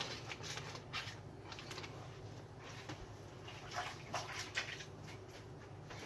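Brief rustles and crinkles of a plastic bacon package being handled, a few near the start and a cluster about four seconds in, over a steady low hum.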